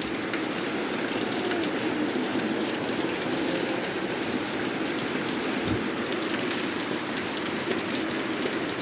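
Steady rain falling, with scattered drops ticking on surfaces; a single soft low thump a little past the middle.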